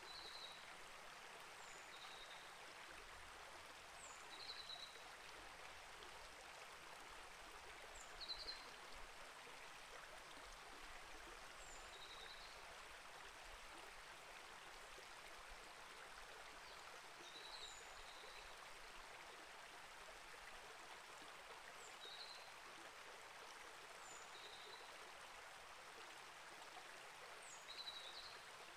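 Small rainforest creek flowing steadily and faintly, with a short high chirping call repeating about every two seconds.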